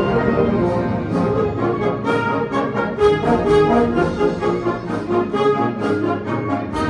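A full concert band of brass, woodwinds and percussion playing, with the brass prominent and short, accented notes.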